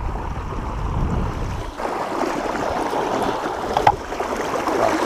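Creek water rushing over small rapids and rocks. The sound becomes fuller and closer about two seconds in; before that a low rumble on the microphone dominates.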